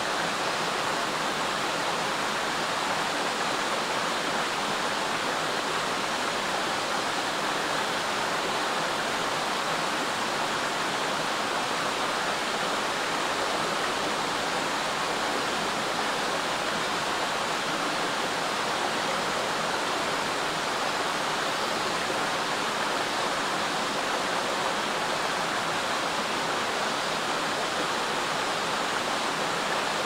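Mountain stream babbling as it spills in a small cascade between boulders into a pool: a steady, even rush of water with no breaks.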